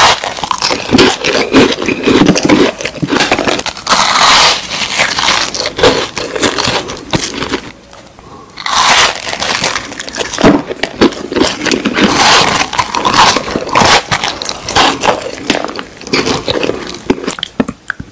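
Close-up crunching and cracking as edible replica phones are bitten and chewed, with a short pause about eight seconds in.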